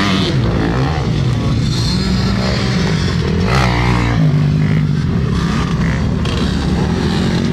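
Several motocross bikes running on a dirt track, their engines revving up and down as they ride past. One bike passes close about three and a half seconds in.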